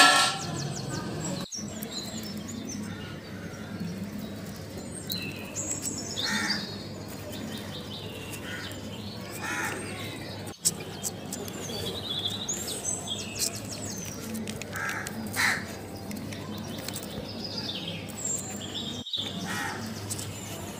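Outdoor birds calling: scattered short chirps and a few harsher, louder calls over a low steady background. A brief loud noise comes right at the start.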